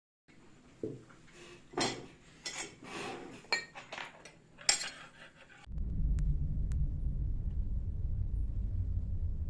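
Hard objects clinking and clattering, like dishes and cutlery, for several seconds, then a steady low rumble that starts a little past halfway.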